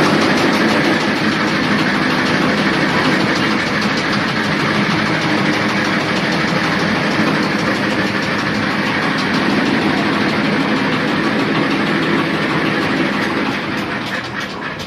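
Dongfeng diesel engine of a 500-litre concrete mixer running steadily, the loudness easing off over the last second or so.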